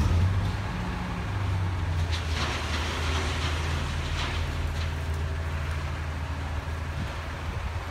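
Roll-off truck's diesel engine running steadily as the truck pulls forward with its container tipped up, with a few faint knocks a couple of seconds in.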